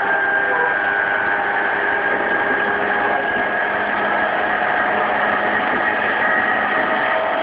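Running sound inside a JR East E233-3000 series electric train's motor car: the Hitachi IGBT VVVF inverter and traction motors whine in several steady tones over the constant rumble of wheels on rail.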